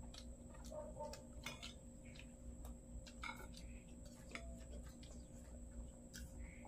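Faint, scattered clicks of spoons and forks against plates and a bowl, over a steady low background hum.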